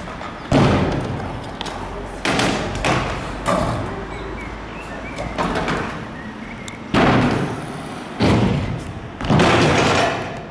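Trick scooters riding skatepark ramps: a series of about seven heavy thumps and slaps as wheels and decks drop in and land on the ramp panels, with wheels rolling between the hits.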